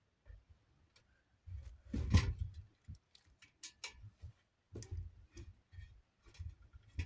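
Irregular clicks and knocks of small fan parts and screws being handled, with a louder knock and rustle about two seconds in.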